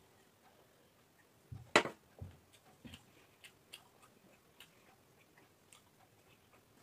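A drinking glass set down on a glass tabletop with one sharp clink about two seconds in, amid scattered soft clicks of eating: a hand mixing rice on a steel plate and mouth sounds.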